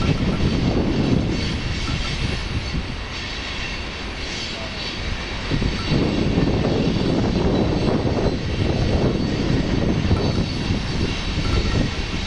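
Freight train rolling through a rail junction: a steady rumble and rattle of wheels and cars on the track, easing off slightly partway through and building again about halfway in.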